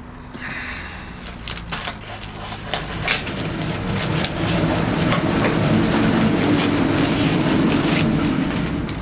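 Plastic packaging crinkling and rustling as a parcel is cut with scissors and its wrapping pulled apart by hand, with scattered crackles that build to a dense, steady rustle about four seconds in and ease off near the end.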